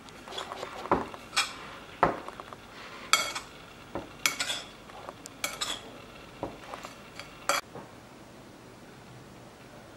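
Metal spoon stirring a dry, crumbly ground-nut and sugar filling in a ceramic bowl, with irregular sharp clinks and scrapes of the spoon against the bowl. The clinking stops about three-quarters of the way through.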